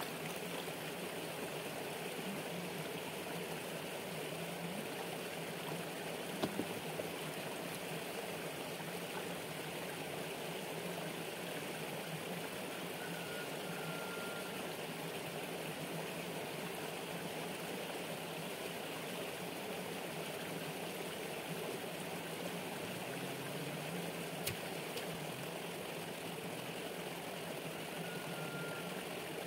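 Shallow stream water running steadily around a person wading in it, with a couple of faint knocks and two brief high whistles.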